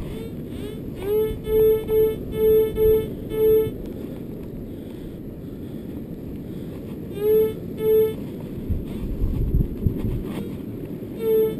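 Metal detector beeping over a target in the dug hole: a quick run of six short beeps, the first rising in pitch, then two more after a pause and one near the end. Steady wind noise on the microphone lies underneath.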